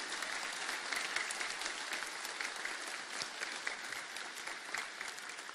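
Audience applauding: many hands clapping together, slowly fading away.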